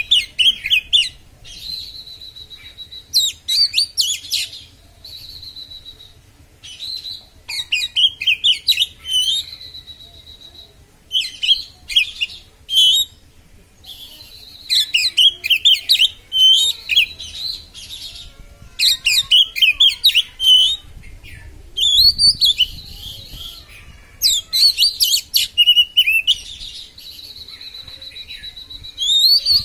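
Oriental magpie-robin (kacer) singing sharply in the 'konslet' style. Bursts of fast, varied chattering and sweeping notes come every few seconds, broken by long high whistles held on one pitch.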